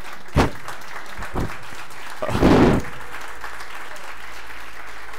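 Audience applauding steadily, with a few thumps in the first second and a louder burst about two and a half seconds in.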